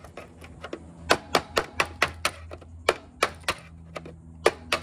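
Sharp metallic taps on a screwdriver set against a conduit lock nut, driving the nut round to loosen it. The taps come in quick runs of about four a second, with a short pause before two more near the end.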